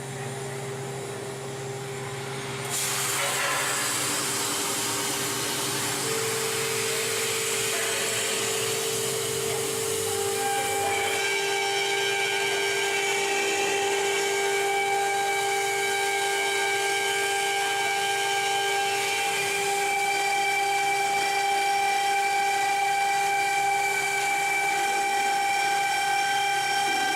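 CNC plasma cutter running a cut in steel sheet: a steady hiss with several high whining tones over it. The hiss gets louder about three seconds in.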